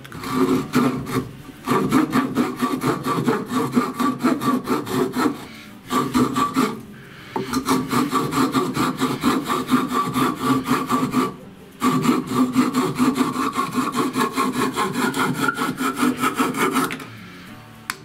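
Small saw from a GANZO hatchet set cutting a wooden dowel clamped in a vise, in rapid back-and-forth strokes. The strokes come in several runs with short pauses and stop about a second before the end. The saw is sharp but makes very slow progress through the wood.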